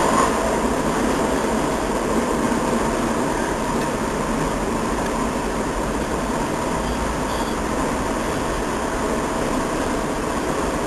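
Cars of a long Union Pacific intermodal freight train rolling steadily past at speed, a continuous noise of steel wheels on rail.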